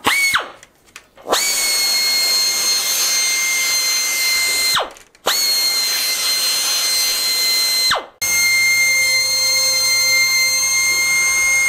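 Air-powered chamfering tool running in short bursts: a steady high whine over a hiss of air. A brief blip comes first, then three runs of a few seconds each. Each run starts abruptly, and the whine drops in pitch as the tool winds down between runs.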